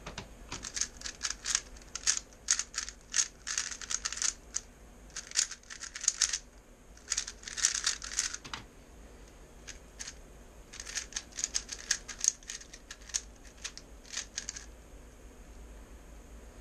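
Plastic 3x3 puzzle cube turned rapidly by hand: quick trains of clicking, clattering layer turns, with a pause of about two seconds in the middle.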